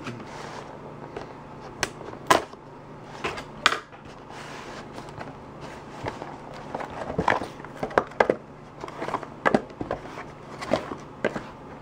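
Cardboard trading-card boxes being handled: a hobby box opened and its mini boxes lifted out and set down on a wooden desk, a series of irregular taps, knocks and scrapes.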